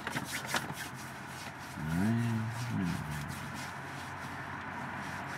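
Hands working a fitting on the truck's hydraulic line underneath the transmission: a few light clicks and scrapes near the start, then a short low hum from a voice about two seconds in, over a steady background hiss.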